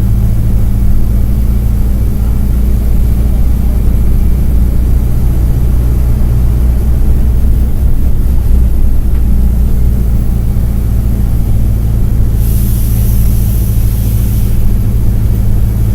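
Mercedes-Benz OF-1722M bus's OM-924 LA four-cylinder turbo-diesel engine running steadily under way, with a short dip in its note about eight seconds in. Near the end there is a brief hiss lasting about two seconds.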